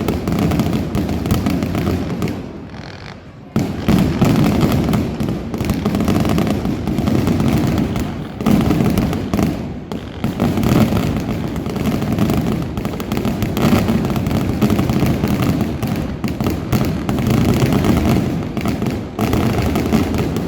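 Aerial fireworks bursting in a rapid, near-continuous barrage of bangs, with a brief quieter lull about two seconds in before the volley picks up again.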